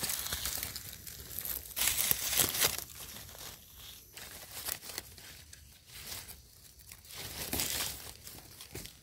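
Dry fallen leaves rustling and crackling in irregular bursts as they are brushed aside and pushed through, loudest about two seconds in and again near the end.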